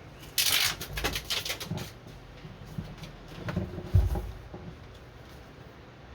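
Foil-faced butyl sound-deadening sheet being handled: a loud crinkly rustle about half a second in, then scattered taps and a low thump about four seconds in.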